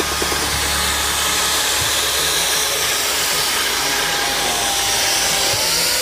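Handheld electric wall-floating machine running, its motor-driven round disc spinning against fresh cement render: a steady whirring hiss with a faint motor whine that rises a little in pitch near the end.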